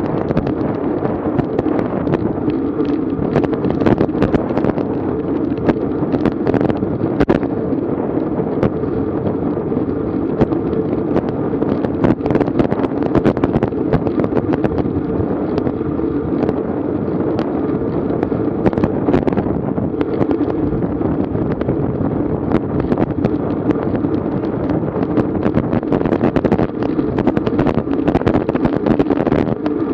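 Strong wind buffeting a bike-mounted GoPro's microphone: a steady, loud rumble broken by frequent small knocks and crackles.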